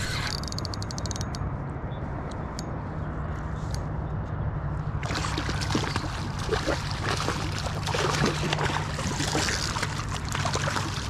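Water splashing and sloshing at the side of a kayak, starting suddenly about five seconds in, over a steady low hum.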